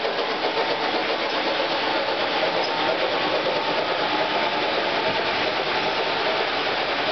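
American Flyer model trains running on the layout: a steady, unbroken whir of their electric motors and metal wheels on the track.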